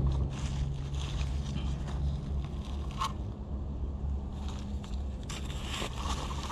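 Dry leaf litter rustling and crackling as someone moves and handles the forest floor, over a steady low hum.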